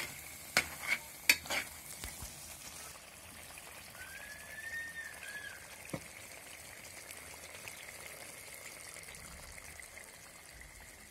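Chicken karahi gravy simmering and sizzling in a metal pot, with a metal ladle clinking against the pot about four times in the first second and a half and once more near the middle.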